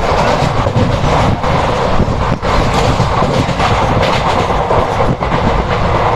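Indian Railways express passenger train running at speed, heard from on board at the coach side: a steady loud rumble and rattle of coach wheels on the track, with a few sharper clacks over rail joints.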